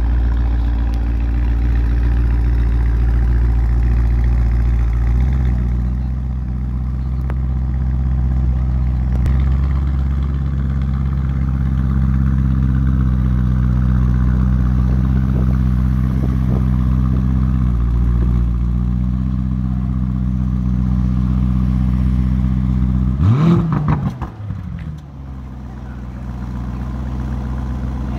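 Lamborghini Urus twin-turbo V8 idling steadily, its idle pitch shifting slightly a couple of times. About 23 seconds in it gives one short, sharp rev blip, after which the engine sound drops away.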